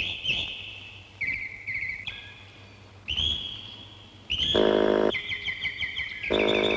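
Electronic bird-like chirps and rapid trills, high-pitched and in quick succession. Two buzzy synthesizer tones break in, one about four and a half seconds in and a louder-stretch one near the end.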